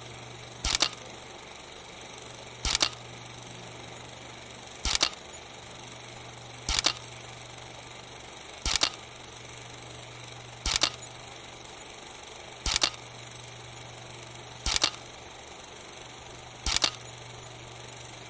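Camera shutter clicks, each a quick double click, repeating evenly about every two seconds over a faint steady hum.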